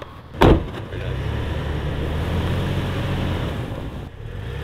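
A short thump, then the truck's engine runs and pulls as it is driven through deep snow to get unstuck, its note rising a little about a second in and then holding steady.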